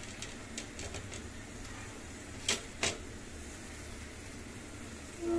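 A metal spatula clicking and tapping against an iron karahi a few times, with two sharper taps close together about two and a half seconds in, over a faint steady background noise.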